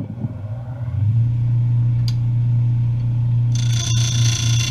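Wood lathe running with a segmented vase blank spinning, a steady low hum that settles in after about a second as it comes up to speed. About three and a half seconds in, a turning tool starts to cut the spinning wood with a higher scraping hiss.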